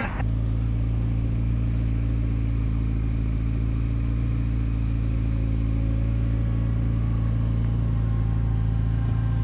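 McLaren 570S Spider's twin-turbo V8 idling steadily.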